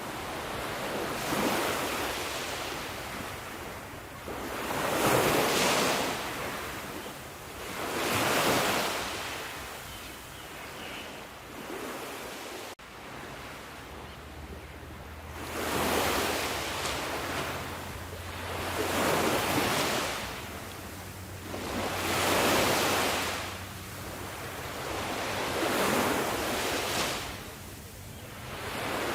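Ocean surf: waves breaking and washing ashore, swelling and fading about every three seconds, with a brief sudden break about halfway through.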